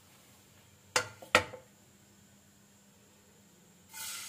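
Two sharp, ringing clinks of kitchen utensils a third of a second apart, then near the end hot oil starts to sizzle as chopped ginger drops into the karahi.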